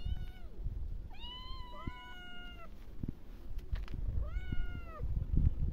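Young tabby-and-white kittens meowing to be fed: a few drawn-out meows, two of them overlapping about a second in and another near the end. A low rustle is underneath, loudest near the end.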